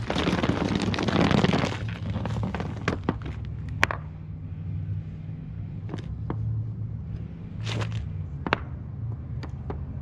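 Metal parts being handled: a rattling clatter for about two seconds, then scattered clicks and knocks over a steady low hum, as the old front-end linkage is laid out beside the new one.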